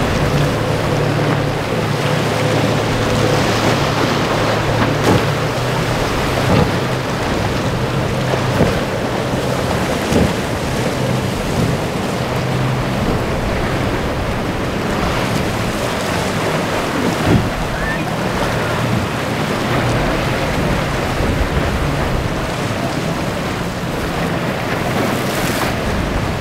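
Outboard boat engine running steadily under the rush of breaking waves and spray, with wind buffeting the microphone and a few short thumps.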